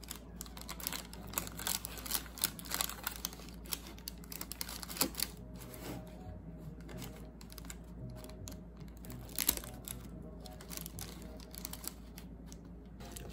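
Irregular light clicks and taps of a metal fork against a plastic takeout container and its paper liner as a cream-topped tart is cut.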